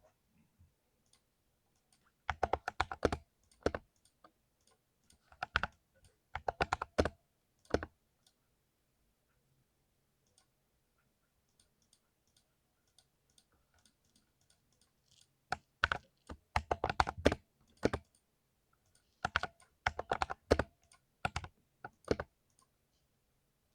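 Typing on a mechanical keyboard with Cherry MX Silver Speed linear switches: quick runs of keystrokes in four bursts, with a long pause in the middle.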